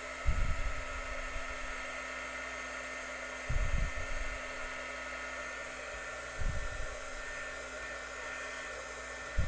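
Handheld electric heat gun running steadily, blowing hot air with a light motor whine to shrink heat-shrink tubing over a soldered wire joint. Three short low bumps break in: near the start, about three and a half seconds in, and about six and a half seconds in.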